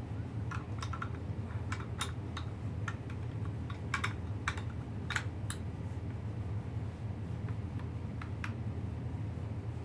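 A run of light, irregular clicks and taps, a dozen or more spread over several seconds and stopping near the end, over a steady low hum.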